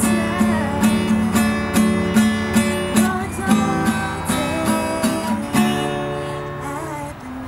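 Acoustic guitar being strummed in a steady rhythm, about two strums a second. Near the end the strumming stops and the last chord rings out and fades.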